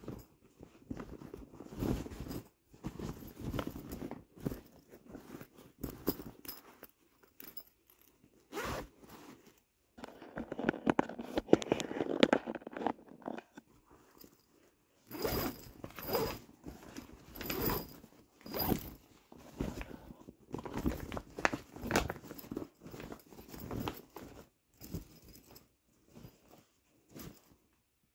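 Zipper on a non-woven fabric storage bag being pulled open in a series of short rasping strokes, mixed with the rustle and crinkle of the fabric being unfolded and handled.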